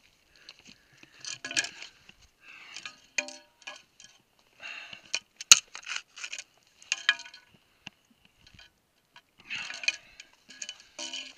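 Ice axes scraping and clinking against rock, with short metallic rings at a few of the strikes and one sharp click about halfway through.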